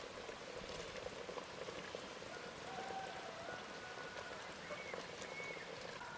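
Pot of chicken masala boiling over a wood fire: a steady, faint bubbling and crackling patter.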